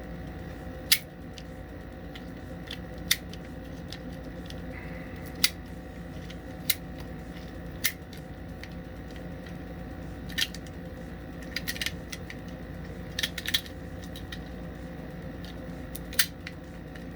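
.22 LR cartridges being thumbed one at a time out of a Taurus TX22 pistol magazine, each slipping free with a sharp click. The clicks come every one to three seconds, with a few quick runs of clicks about two-thirds of the way through, over a steady low hum.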